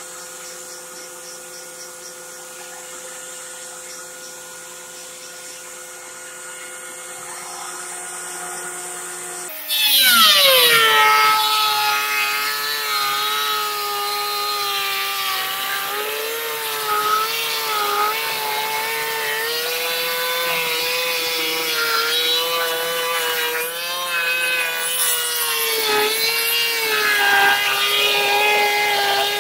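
Ridgid benchtop thickness planer running with a steady hum, then about ten seconds in a board feeds into the cutterhead: the sound jumps much louder and the motor's pitch drops and wavers under the load of planing an old weathered board.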